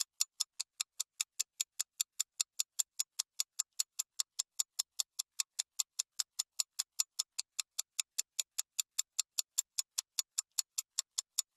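Clock-like ticking sound effect: a steady run of evenly spaced sharp ticks, about five a second, that stops shortly before the end. It is an editing effect marking fast-forwarded footage.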